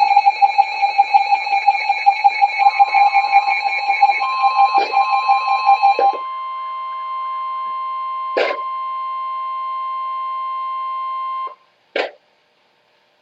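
Emergency Alert System flash flood warning tones. A rapidly pulsing alarm beep runs for the first six seconds, and the steady 1050 Hz warning tone comes in under it and holds alone until it cuts off near the end. A few sharp clicks break it up.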